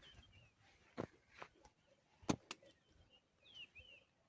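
Two sharp knocks, the second the louder, then a few short bird chirps near the end.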